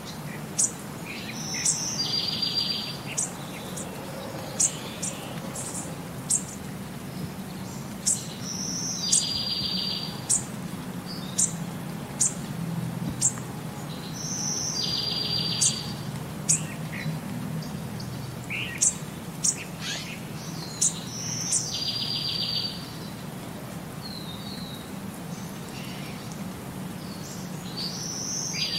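A songbird repeating the same short song about every six or seven seconds: a high note, then a buzzy trill lasting about a second, with sharp chirps in between, over a steady low hum.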